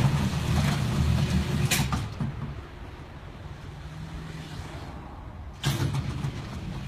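LiftMaster commercial operator raising a ribbed sectional garage door smoothly, a steady low hum. About two seconds in there is a click and the sound drops off; near the end a sharp knock.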